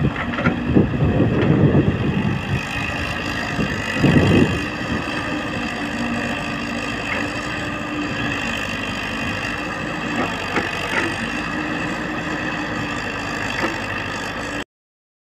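Tracked excavator's diesel engine running steadily, with louder rough surges about one to two seconds in and again about four seconds in. The sound cuts off abruptly near the end.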